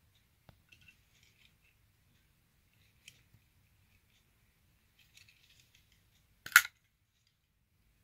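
Automatic folding knife's blade springing open and locking with one sharp metallic snap about six and a half seconds in, after a few faint clicks and rustles of the knife being handled.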